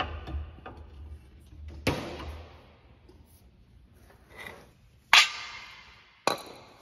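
Metal hand tools clanking as a long breaker bar is withdrawn from a front steering knuckle and set down: a few separate sharp metallic hits, the loudest about five seconds in, each ringing briefly.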